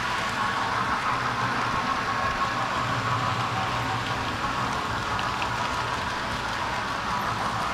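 Model railway steam locomotive and freight wagons running past on the track: a steady rolling rattle of small wheels on rail with a low motor hum underneath.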